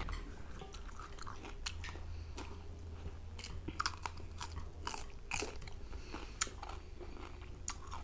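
Close-up crisp bites and chewing of raw cucumber slices: a run of short wet crunches and mouth clicks, thickest in the middle.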